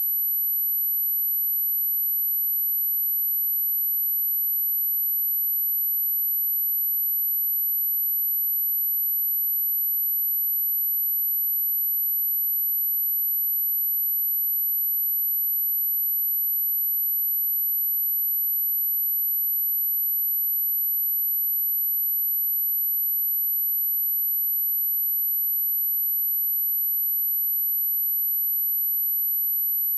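Pure sine-wave test tone at 11832 Hz, a single steady high-pitched whistle held at one pitch and level throughout.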